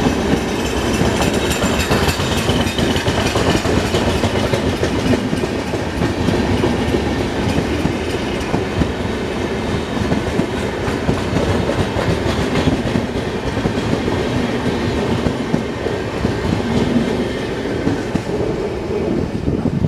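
Indian Railways passenger train rolling past, its coaches' wheels clattering over the rail joints in a steady, continuous run.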